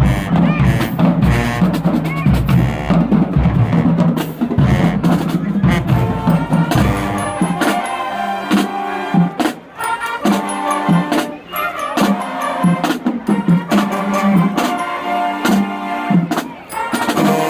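A high school marching band playing, with drums prominent. For the first seven seconds or so a deep bass drives it; after that the bass drops away and higher-pitched parts carry on over sharp drum hits.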